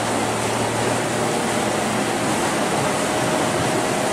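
Steady rushing noise aboard a moving harbour ferry: wind and water with a low, even engine hum underneath.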